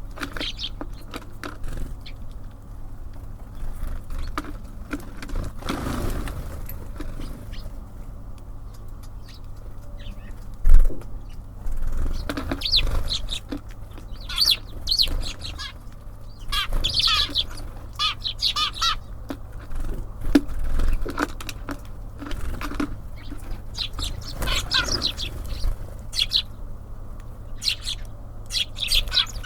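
Small birds at a feeder: clusters of short, high chirps and calls with wing flutters, busier in the second half. A single sharp knock about eleven seconds in is the loudest sound. A steady low rumble runs underneath.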